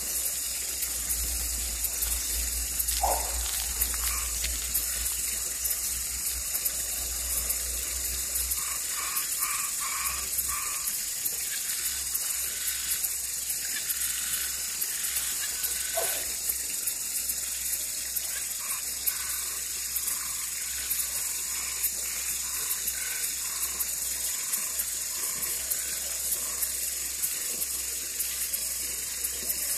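Night chorus of frogs and tree frogs: a dense, steady high-pitched trilling, with short repeated calls in the middle and two brief single calls, about three seconds in and again near sixteen seconds.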